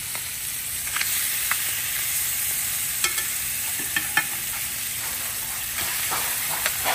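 Redfish fillets sizzling steadily in hot butter and oil in a stainless steel skillet as they blacken. A metal spatula clicks and scrapes against the pan a few times as the fillets are turned.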